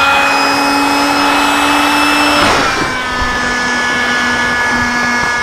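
Small electric air pump running steadily with a whine as it finishes inflating an insulated sleeping pad. About halfway through, its pitch drops a little and it carries on at the lower pitch.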